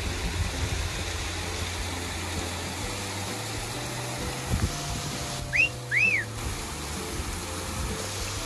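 A wolf whistle a little past halfway: a short rising note, then a rising-and-falling one. Under it runs the steady rush of a small waterfall, with faint background music.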